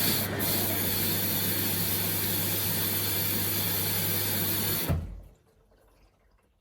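Samsung washing machine's water inlet valve open: water hissing into the machine over a steady electrical hum, cutting off suddenly about five seconds in as the valve closes.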